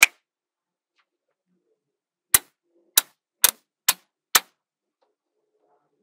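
Small magnetic balls snapping together with sharp clicks: one right at the start, then five more about half a second apart from a little over two seconds in.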